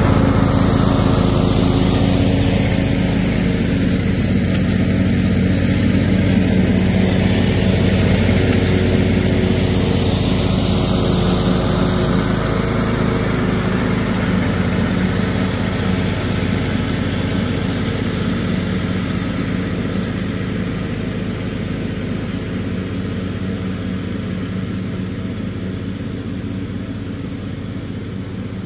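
John Deere riding lawn tractor running steadily while mowing, its engine hum and cutting deck loudest at first, then gradually fading as it drives away.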